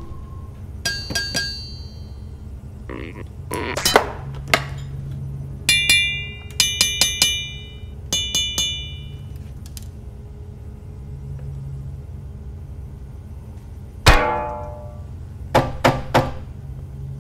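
Low steady machine hum broken by clinks and pings that ring briefly and by scattered knocks. About three-quarters through comes a heavier thunk with a falling ring, followed by a quick run of sharper knocks.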